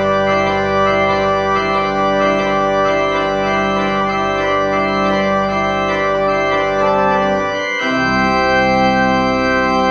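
Organ postlude: sustained chords, held steadily, with a brief break and a change of chord about eight seconds in.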